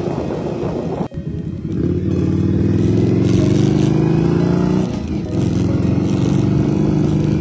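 Motorcycle engine running, its pitch climbing slowly for a few seconds, dipping about five seconds in, then climbing again. A sudden brief dropout about a second in.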